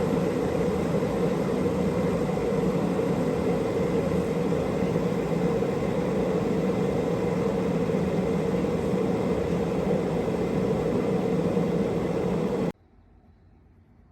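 Electric kettle heating water: a steady rushing rumble that cuts off abruptly near the end.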